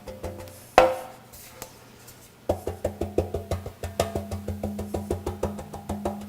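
Background music with a quick, clicking wood-block-like beat over held bass notes. It drops out about a second in, after a single loud knock, and comes back halfway through.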